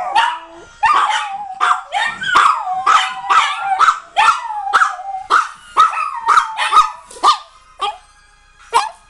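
Several dogs howling and yelping together in a quick run of short, pitched calls, about three a second, that thins out near the end.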